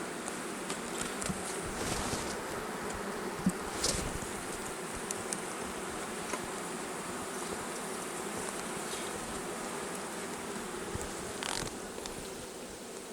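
Honeybees buzzing steadily over an open hive, with a few short knocks about two, four and eleven seconds in. The beekeeper takes this colony to be queenless.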